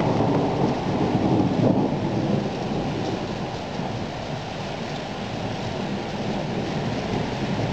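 Thunderstorm: heavy rain falling with a low rumble of thunder, loudest in the first couple of seconds and then easing a little.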